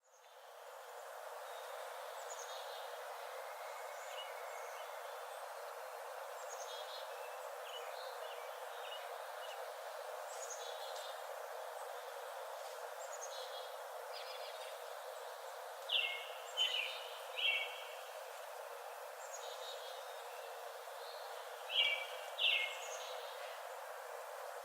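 Forest birds chirping and calling over a steady background hiss, fading in at the start; three louder calls come about two-thirds of the way in and two more near the end.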